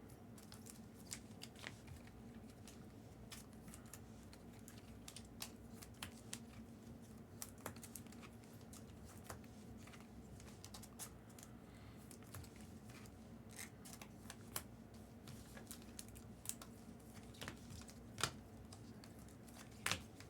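Faint, scattered clicks, scrapes and crinkles of trading card packs being opened and the cards handled, over a low steady hum.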